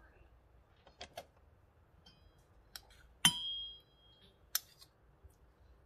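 Metal spoons clinking on a stainless steel mixing bowl as chili paste is scooped in: a few light taps, then one sharp strike about three seconds in that rings for about half a second, and another tap a second later.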